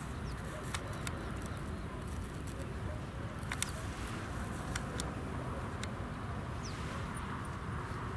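Steady low rumble of open-field outdoor background, with a few sharp light clicks scattered through it, the loudest about three and a half seconds in, and a couple of faint high chirps.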